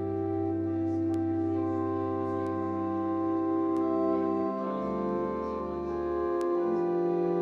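Organ playing slow, sustained chords over a low bass note; the bass changes about halfway through and again a little later.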